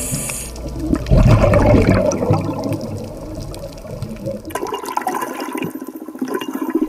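Water rushing and gurgling around a handheld action camera as it comes up through the water. From about four and a half seconds in, the deep rumble drops away, leaving light splashing and lapping at the surface.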